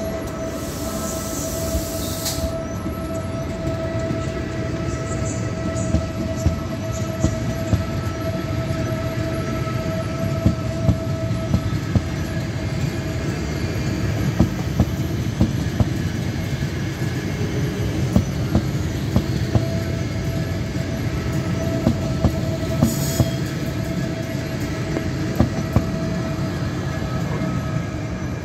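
CP Alfa Pendular (class 4000 Pendolino) electric tilting train pulling out of the station, its traction equipment giving a steady whine over a rolling rumble. A brief hiss comes near the start, and as the cars go by the wheels knock over rail joints and points in short clusters every few seconds.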